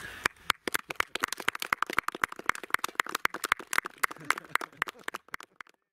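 A small group of people clapping in applause. The separate hand claps are distinct and irregular, and they thin out and stop near the end.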